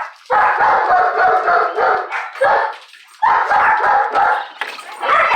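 A dog vocalizing loudly with excited barking and whining, in two long runs, the second starting about three seconds in.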